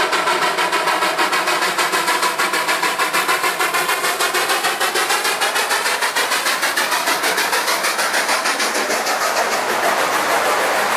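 Narrow-gauge K-36 class steam locomotive No. 482 chuffing hard as it works a train upgrade, about five or six exhaust beats a second. Near the end the chuffing fades as the engine passes, leaving the steadier rumble of the tender and cars rolling on the rails.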